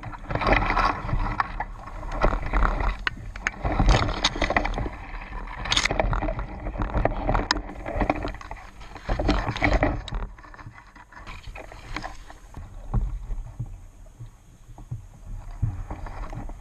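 Irregular rustling, swishing and crunching of brush and dry leaves as a player pushes through vegetation on foot. It grows fainter after about ten seconds.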